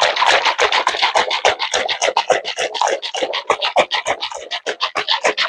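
Homemade oil-and-vinegar blue cheese dressing being shaken hard in a closed container, a fast, even rhythm of sloshing strokes, several a second, to mix it.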